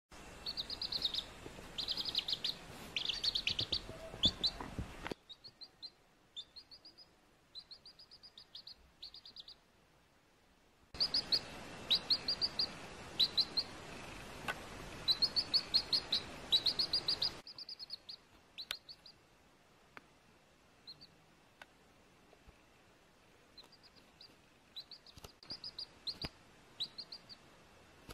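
Baby chick peeping: quick runs of short, high cheeps in clusters of several, with pauses between the runs.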